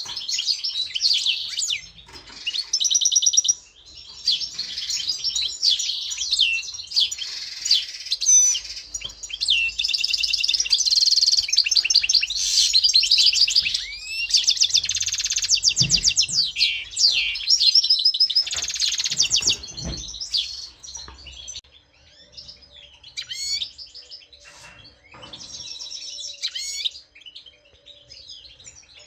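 European goldfinches singing in courtship at breeding time: a fast, continuous twittering song of rapid trills and buzzy notes, which thins to scattered short calls about two-thirds of the way through.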